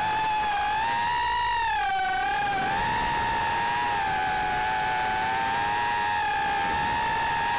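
Brushless motors and propellers of a 2.5-inch FPV quadcopter whining as it flies. The pitch wobbles and dips about one to two seconds in, then holds fairly steady, over a rushing noise from the props.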